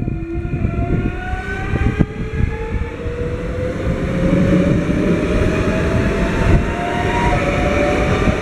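CFL class 2200 double-deck electric multiple unit passing close by as it gathers speed. Its traction whine rises steadily in pitch over a heavy rumble of wheels on rail.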